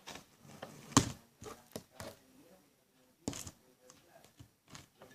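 Slime being scooped and pressed into a small plastic pot: a few sharp taps and knocks with soft handling noises between, the loudest about a second in and another just past three seconds.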